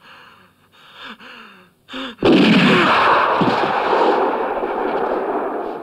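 A wounded man moans faintly, then a single loud gunshot goes off about two seconds in, with a long echoing tail that slowly fades.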